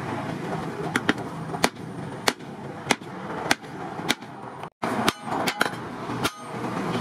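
Repeated sharp clanks of a heavy steel bar rammed down by hand onto the centre of a steel tractor disc-plough blade, about one or two strikes a second, to knock out its centre hole.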